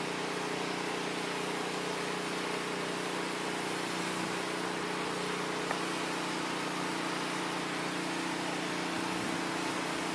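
Steady machine hum with an even hiss, unchanging throughout, and one small click a little past halfway.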